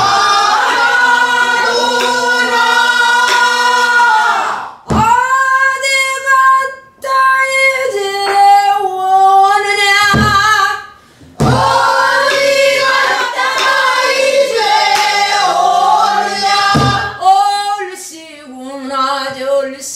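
A woman singing pansori in long phrases with held, wavering notes, marked by single strokes on a buk barrel drum at the phrase breaks.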